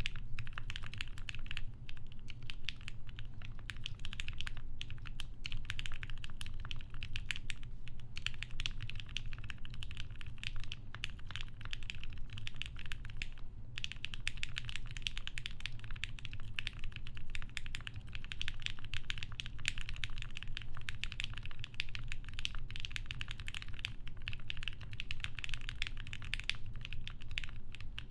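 Continuous typing on a TGR Jane v2 mechanical keyboard with lubed Gateron Black Ink v2 linear switches, an FR4 half plate and GMK Honeywell keycaps: a dense, fast run of key clacks, with brief pauses about four and a half and thirteen and a half seconds in.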